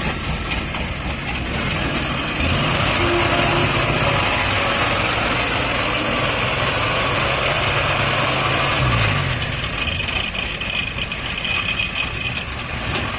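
Tracked rice combine harvester's diesel engine running close by. It speeds up and gets louder about two and a half seconds in, holds steady, then slows back about nine seconds in.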